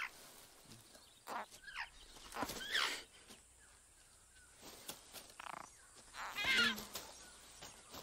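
Bird chicks in a nest calling: a few short chirps with gliding pitch, and two louder raspy squawks, about two and a half and six and a half seconds in.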